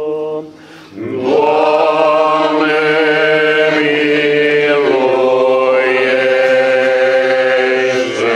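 Orthodox liturgical chant: voices singing long held notes, the melody stepping to new pitches about a second in, around five seconds, and near the end.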